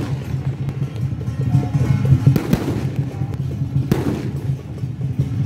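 Firecrackers going off as a few separate loud bangs, about two and a half and four seconds in, over steady music.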